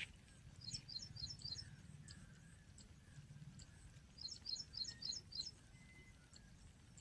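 A small bird singing faintly, in two short phrases of rapid high chirps about three seconds apart, over a low background rumble.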